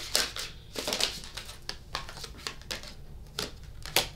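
Tarot cards being shuffled and handled: an irregular run of crisp card flicks and rustles, with the sharpest snaps right at the start and just before the end.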